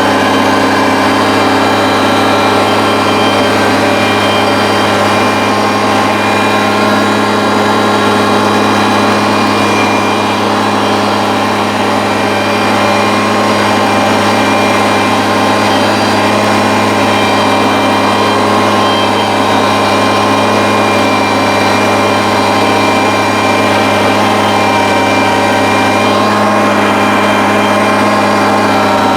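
Kubota compact tractor's diesel engine running steadily at full throttle while driving its 45-inch front snowblower through deep snow, the pitch holding even throughout.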